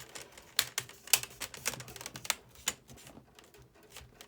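Plastic screen bezel of an HP Stream 14 laptop being pressed back onto the lid, its clips snapping into place in a run of sharp, irregularly spaced clicks.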